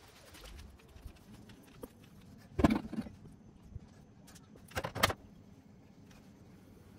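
A metal clunk as the Lambretta's alloy engine casing is set down on a gas hob's steel pan support, then a quick run of several clicks about five seconds in as the burner is lit beneath it.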